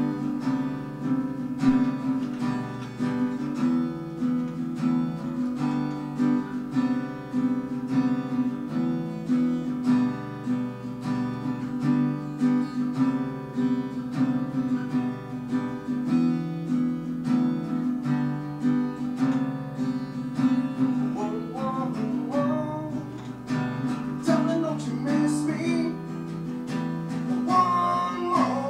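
Acoustic guitar strummed in a steady rhythm of chords, with a man's singing voice coming in over it about three-quarters of the way through.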